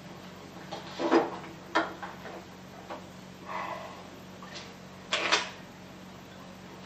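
A few short knocks and clatters of furniture and objects being handled, with the loudest about five seconds in, over the steady low hum of an old film soundtrack.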